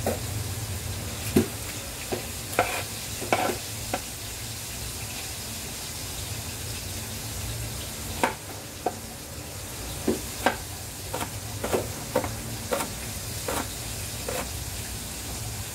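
Kitchen knife chopping a red onion on a plastic cutting board: irregular sharp taps of the blade against the board, a few at first and more often in the second half, over a steady background hiss.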